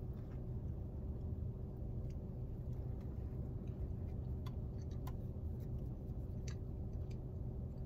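Steady low hum of a car cabin, with a few faint soft clicks from a person chewing and picking at fries.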